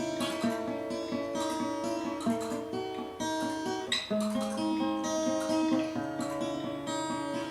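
Acoustic guitar playing an instrumental interlude of a song, picking chords in a steady rhythm.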